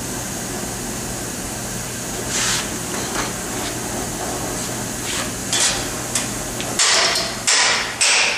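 Oxy-acetylene cutting torch hissing steadily as it cuts thin steel plate. From about five and a half seconds in comes a run of sharp knocks, about one and a half a second.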